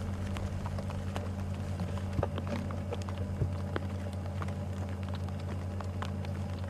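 Steady low hum of an idling game-drive vehicle's engine, with faint scattered clicks.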